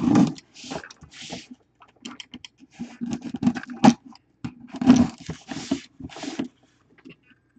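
Hands opening a sealed box. The sound is a run of irregular scraping, rustling and sharp taps.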